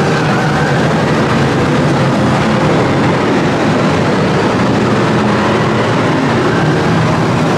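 Many Stockcar F1 racing car engines running together as a pack races through a turn: a loud, steady, unbroken drone with no single event standing out.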